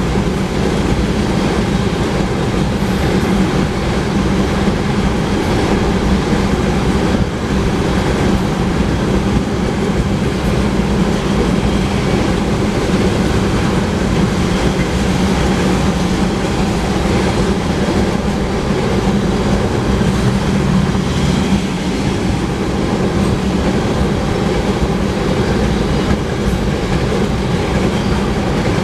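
Long string of loaded oil tank cars rolling past on the main track, a steady loud rumble of steel wheels on the rails with clickety-clack from the rail joints.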